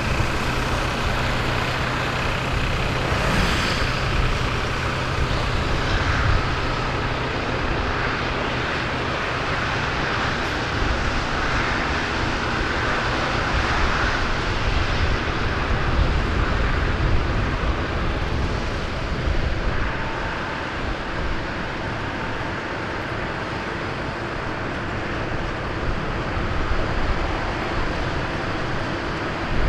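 A column of farm tractors driving past, their diesel engines running with steady traffic noise.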